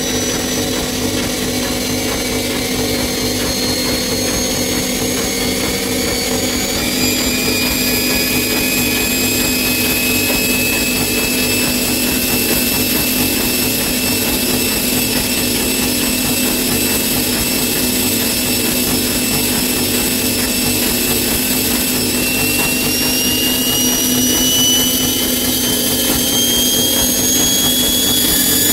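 Bosch Maxx 6 washing machine spinning at high speed: a steady loud rumble with a high motor whine that steps up about a third of the way through and then rises slowly as the spin speeds up. The noise stays loud at high speed even with new motor bearings, which the owner takes for a broken drum.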